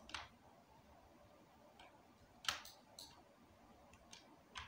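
A handful of faint, sharp clicks from a computer mouse and keyboard, spaced irregularly, with the loudest about halfway through, over near-silent room tone.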